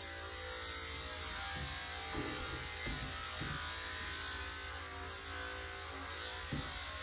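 Electric dog-grooming clippers with a comb guard running steadily as they trim a cockapoo's curly coat, a constant motor buzz with a high whine. A few short soft thuds in between.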